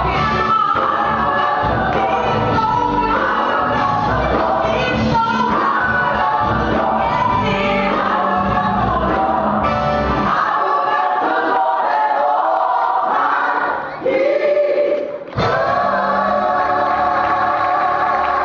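A church gospel choir singing. About ten seconds in, the deep bottom of the music falls away. A little later there is a brief break, and then the choir comes back on a long held chord.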